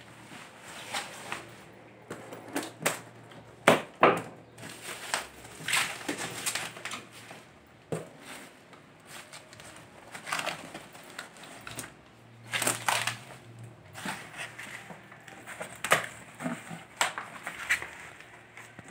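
Bubble wrap and clear plastic sheeting crinkling in irregular crackling bursts as they are handled and pulled away from a cardboard box.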